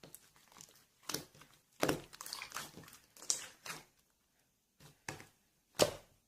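Irregular handling noises: a string of short knocks and clicks with rustling between them, the loudest about two seconds in and again near the end.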